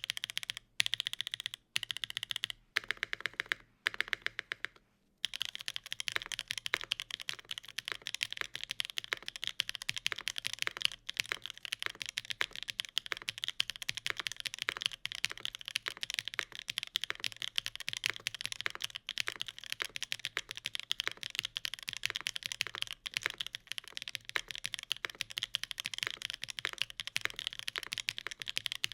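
Typing on a Keycult No. 2/65 mechanical keyboard with Gateron Cream Soda linear switches, an aluminium plate and GMK Dune keycaps. Short runs of keystrokes with brief pauses give way to steady fast typing about five seconds in.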